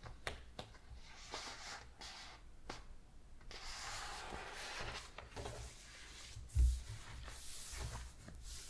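Pages of a large hardcover book being handled and turned: light ticks and paper rustling, then a longer rustle as a page is turned about three and a half seconds in. Two dull thumps follow, near the end, as the new spread is pressed flat.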